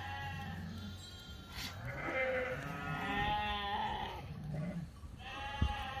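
Sheep in a flock bleating: several wavering, overlapping calls, the longest lasting about two seconds in the middle. A brief low thump near the end.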